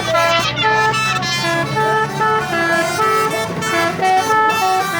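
Telolet-style multi-tone musical horn playing a quick melody of short stepped notes, each lasting about a quarter second. A low steady hum runs under the first two seconds.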